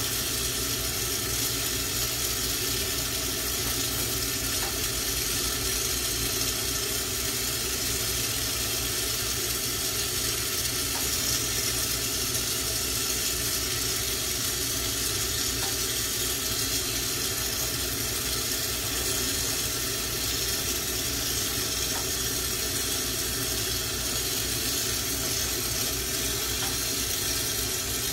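Lampworking bench torch burning, a steady hiss from the flame as glass is worked in it, with a steady low hum underneath.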